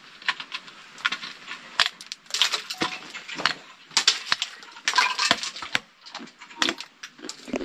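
Trekking pole striking hanging icicles again and again, with sharp clinks and cracks of ice, in irregular clusters, as the icicles are knocked at to break a piece loose.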